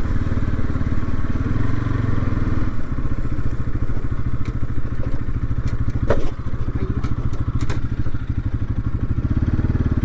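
Motorcycle engine running steadily at low speed as the bike rides over a rough dirt track, a fast even pulse of firing strokes. A couple of sharp clicks come through about six and eight seconds in.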